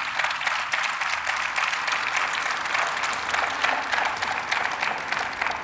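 Large audience applauding steadily, a dense mass of handclaps.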